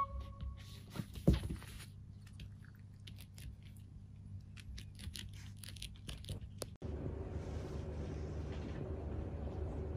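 A cat moving about on fleece blankets: cloth rustling and scraping with scattered light clicks, and a single sharp thump about a second in. After a cut later on, only a steady low room hum remains.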